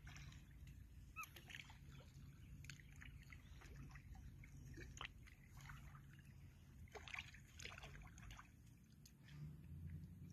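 Near silence: faint lapping of river water at the shore with scattered small clicks and rustles.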